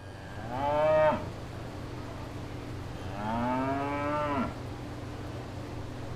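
Cattle mooing: a short, loud moo about half a second in and a longer moo about three seconds in. A steady low rumble runs underneath.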